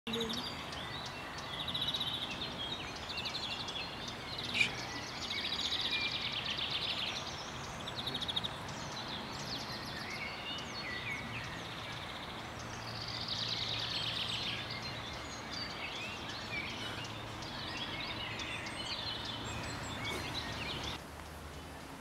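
Small birds singing and calling, a mix of chirps, whistled glides and several rapid rattling trills, over steady outdoor background noise, with one sharp click about four and a half seconds in.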